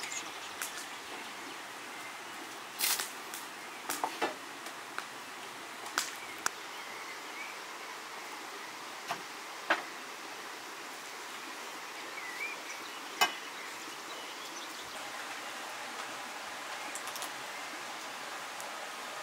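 Steady outdoor background hiss with scattered short, sharp taps and clicks from raw chicken and dishes being handled on a wooden table; the loudest tap comes about thirteen seconds in.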